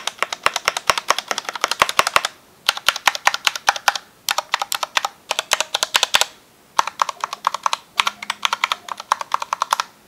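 Keys on a SteelSeries Apex 7 TKL mechanical keyboard with Cherry-style stabilizers being pressed rapidly to show how the stabilized keys sound. The keys clack in several fast runs with short breaks between them. The board has SteelSeries red linear switches and ABS keycaps.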